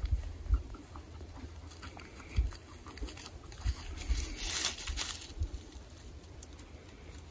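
Airedale terrier rustling and sniffing about in dry grass and leaf litter, with light scattered crackles and a louder rustle a little past the middle.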